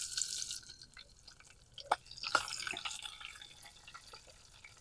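Green chillies sizzling in hot oil in a clay pot. The first sizzle dies down within the first second; about two seconds in there is a sharp click, then a second burst of sizzling that fades away.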